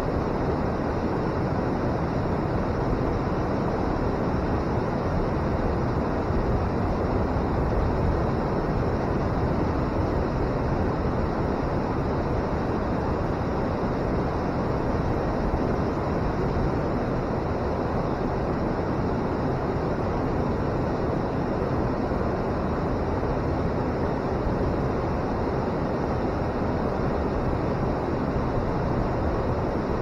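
River water pouring over a weir and churning in the pool below: a steady roar of rushing water that does not change.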